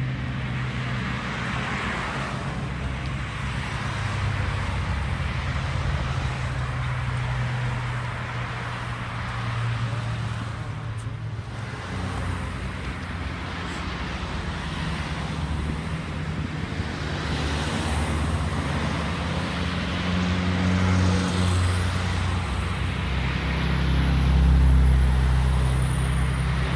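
Roadside traffic: cars passing one after another on a multi-lane road, a steady engine hum and tyre noise swelling and fading with each vehicle, loudest near the end.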